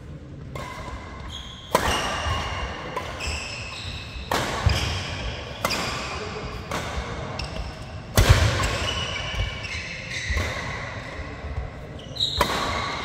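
Badminton doubles rally: sharp racket strikes on the shuttlecock about once a second, starting about half a second in, mixed with short high squeaks of shoes on the court mat.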